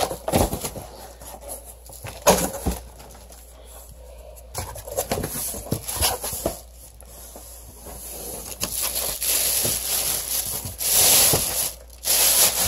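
Cardboard box flaps handled with a few knocks, then plastic wrapping crinkling and rustling for several seconds as a wrapped case is pulled out of the box.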